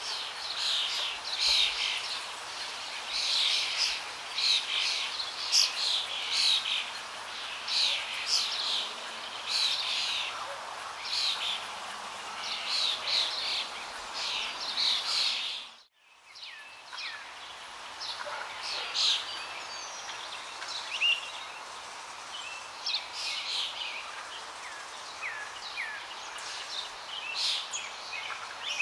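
Small birds chirping, many short high chirps in quick succession. The sound drops out briefly about halfway through, then the chirping comes back sparser.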